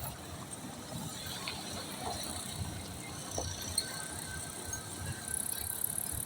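Wind buffeting the microphone with road noise from a moving vehicle: an uneven low rumble, with a brief rise in high hiss near the end.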